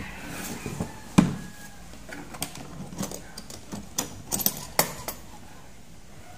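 Hard plastic tool case set down on a wooden table with a heavy knock, then its two metal latches snapped open in a quick run of sharp clicks before the lid is lifted.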